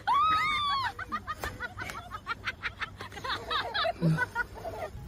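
A person giggling in high-pitched, quick bursts, starting with one long, high call that rises and falls.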